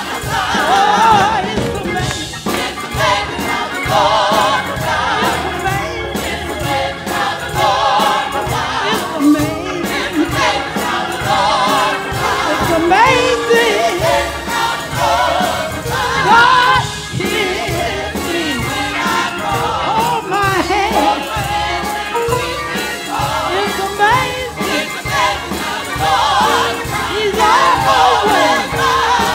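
Gospel singing: a woman sings into a microphone while the congregation sings along.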